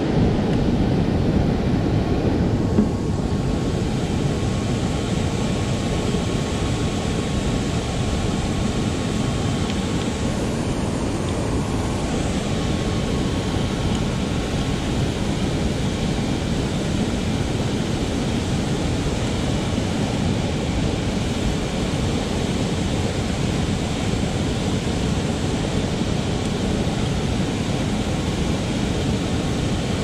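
Water pouring over a low weir's spillway and rushing downstream: a steady, unbroken rushing noise.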